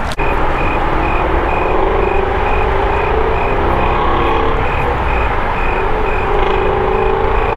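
A vehicle's reversing alarm beeping steadily, about two beeps a second, over an engine running.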